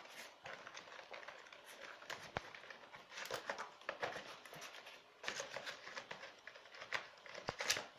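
Packaging being handled by hand: rustling and crinkling with irregular light clicks and taps.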